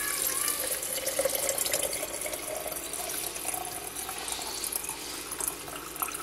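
Water pouring in a steady stream from a plastic pitcher into a quart-size glass mason jar, the note of the filling jar rising slowly as the water level climbs.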